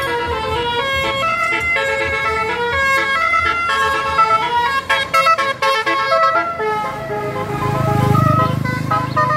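A tour bus's multi-tone 'telolet' horn playing a tune of held notes that step from pitch to pitch, several sounding together. A low engine rumble swells about seven seconds in.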